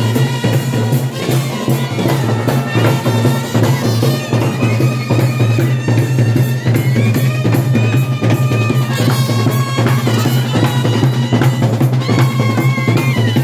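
Marching band playing: snare drums and a bass drum beat a fast, busy rhythm under a trumpet melody.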